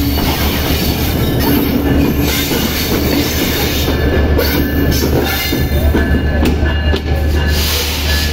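EMD GT42ACL diesel-electric locomotive passing slowly at close range, its diesel engine running steadily while its wheels clatter and squeal on the rails.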